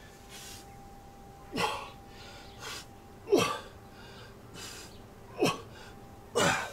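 A man breathing out forcefully with a short voiced 'hah' that drops in pitch, four times, with softer breaths in between, as he bends forward at the waist in a stretch.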